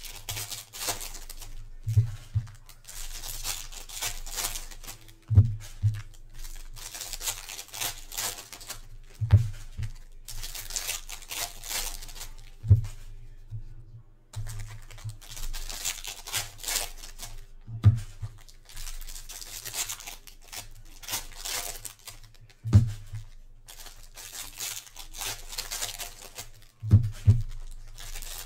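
Foil trading-card pack wrappers being torn open and handled, in repeated bursts of crinkling and tearing. Short soft thumps come now and then, as cards and packs are tapped or set down on the table.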